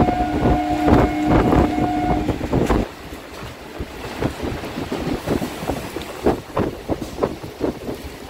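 Electric suburban local train running at speed through a station, its wheels clattering over rail joints and points, with wind on the open window. A train horn holds a steady two-note tone for about the first two seconds. About three seconds in the running noise drops sharply and the wheel knocks go on more quietly.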